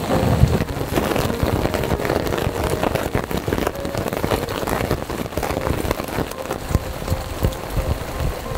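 Heavy rain falling, with many close drops striking a surface in a dense, irregular patter.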